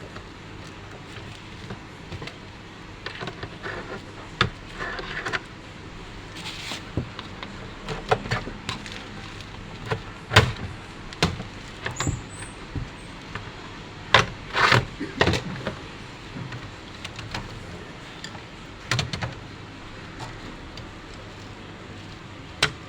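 Irregular clicks and knocks of plastic and metal computer parts being handled during the disassembly of an HP all-in-one PC, with a few short scrapes, over a steady low hum.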